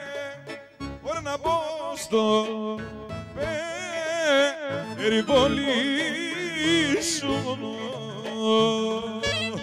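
A man singing a Greek folk song into a microphone, with wide vibrato and ornamented, wavering held notes over live band accompaniment.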